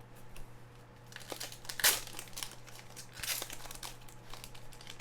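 Plastic-foil trading-card pack wrapper crinkling as it is handled and opened, in irregular crackles, with the loudest sharp rustle about two seconds in.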